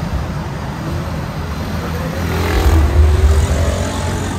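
City road traffic: cars and motorcycles running past below, a steady rumble that grows louder about halfway through as a vehicle passes close.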